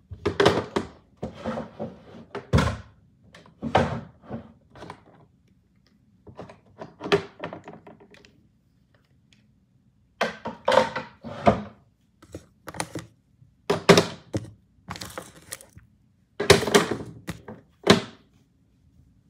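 Small hard items, lip products, being dropped and placed into a drawer: an irregular run of clacks and thunks, with a short pause about halfway through.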